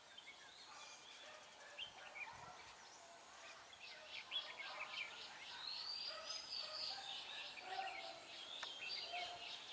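Red-whiskered bulbuls singing back and forth in a fast run of short chirps and trills, with a longer rising-then-falling whistle about six seconds in. It is the duelling song of a caged decoy bulbul and a wild bulbul answering it at the trap.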